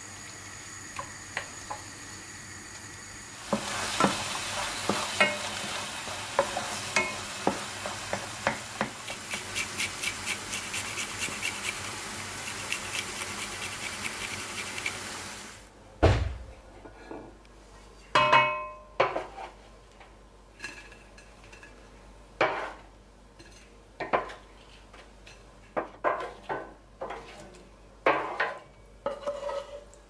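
Chopped tomatoes sizzling in a frying pan while a wooden spatula stirs and scrapes them; the sizzle gets louder a few seconds in. About halfway through, the sizzling stops and scattered knocks and clatters of pans and dishes follow.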